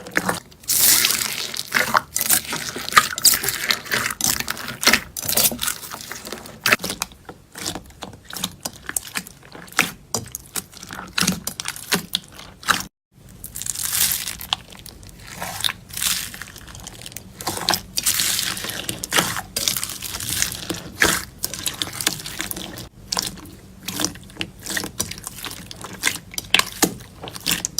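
Slime being squished and stretched by hand: a dense run of wet clicks, pops and crackles. It breaks off in a moment of silence about thirteen seconds in, then carries on.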